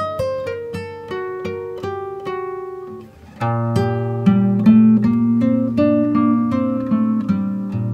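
Acoustic guitar music: a run of single plucked notes, a short lull about three seconds in, then fuller plucked chords over a steady bass.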